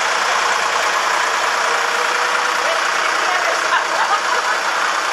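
Tractor engine running steadily, with voices mixed in.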